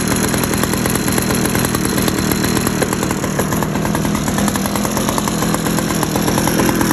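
Small gas engine of a leaf blower running steadily, shortly after being pull-started.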